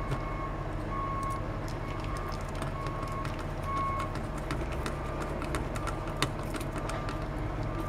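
Small clicks and taps of hand work fitting a screw and a metal contact plate into a toy's plastic battery box. Under them run a steady low hum and a faint high beep that repeats over and over.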